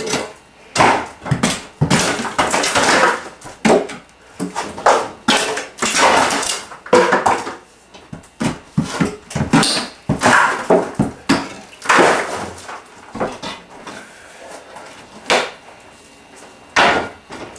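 Plaster and wooden lath being pried off a wall with a crowbar: irregular cracking and crunching, with chunks of plaster breaking off and clattering down. It thins out to a few single knocks near the end.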